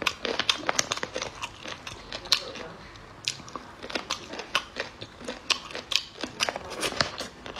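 Thin plastic snack bag crinkling as fingers dig food out of it, mixed with close-up chewing and crunching: many irregular sharp crackles.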